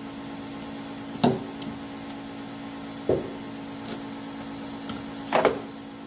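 A hand tool knocking and clinking against parts in a car's engine bay while rubber hoses are worked loose. There are three sharp knocks about two seconds apart and a couple of faint ticks, over a steady low background hum.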